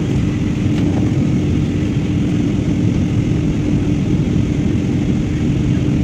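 Steady cabin noise of a jet airliner in flight: the even rush of engines and airflow, with a steady low hum running through it.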